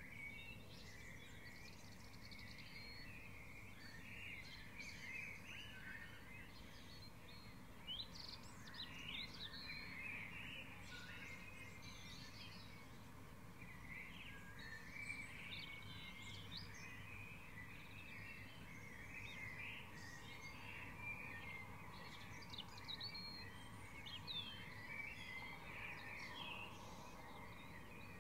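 Dawn chorus: many songbirds singing and chirping at once in overlapping short phrases, over a faint steady low background hum.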